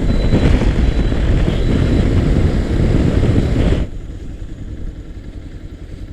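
Loud wind noise buffeting the microphone of a moving motorcycle, a Bajaj Pulsar 220F, over a low engine rumble. It drops suddenly about four seconds in to a much quieter low hum.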